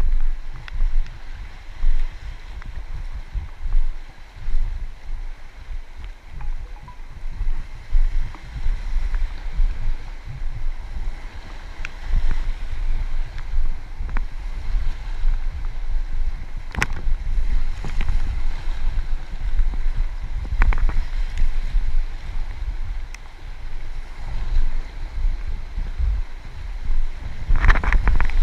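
Wind buffeting the microphone in gusts over the steady rush of river water around a kayak, with a few sharp knocks or splashes, the loudest near the end.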